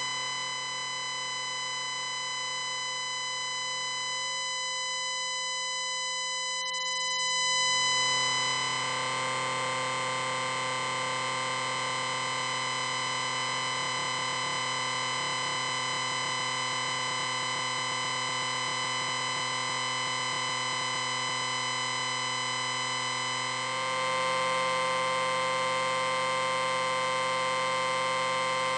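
Synthesized science-fiction 'electric ring' sound effect: a long, steady electronic ringing hum made of many stacked tones. It swells briefly about eight seconds in and turns rougher with a hiss underneath, then steps up a little in loudness near the end.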